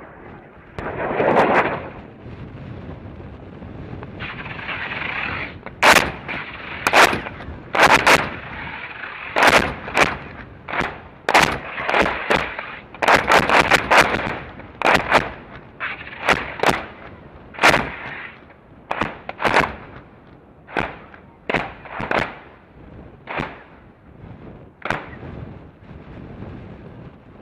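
CBU-105 cluster bomb submunitions detonating over a group of target tanks: about two dozen sharp cracks at irregular intervals, starting about six seconds in and thinning out toward the end. A dull boom comes about a second in, and a rushing hiss comes just before the cracks begin.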